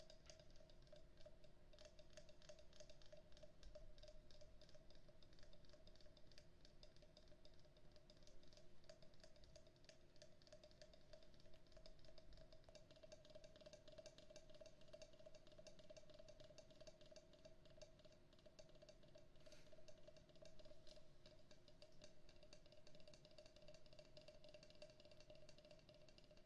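Carved wooden frog percussion instrument being tapped and scratched: a quiet, continuous stream of rapid small wooden clicks, over a faint steady hum.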